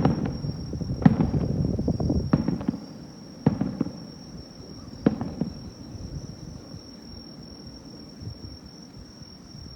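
Aerial fireworks bursting: about five deep booms with rumbling tails spread over the first five seconds, then dying away. A steady high chirring of crickets runs underneath.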